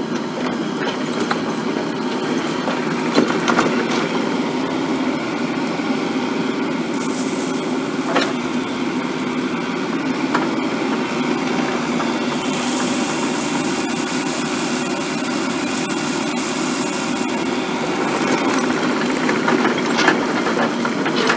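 Compact tracked excavator's diesel engine running steadily under load while its bucket dumps gravel, with a few sharp knocks along the way.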